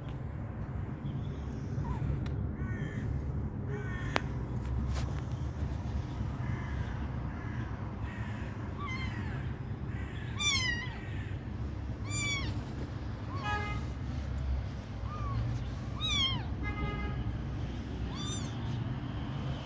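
Kittens mewing repeatedly: short, high-pitched mews, about a dozen, each rising and falling in pitch, over a low steady hum.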